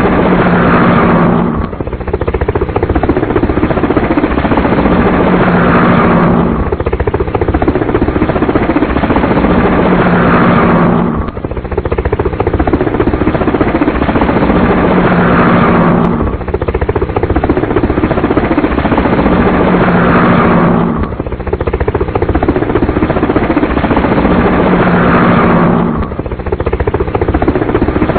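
Helicopter sound effect: loud, steady rotor and engine noise played as a short loop that restarts about every five seconds, with a brief dip at each restart.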